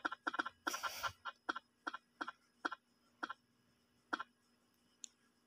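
Spin-the-wheel app on a phone ticking as its wheel spins down: the ticks start quick and spread further and further apart until the last one about four seconds in. A brief faint high blip sounds near the end.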